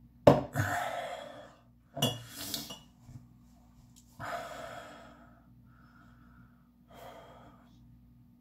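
A man breathing out heavily and sighing, four times in a row; the first, about a second in, starts sharply and is the loudest, the later ones fainter.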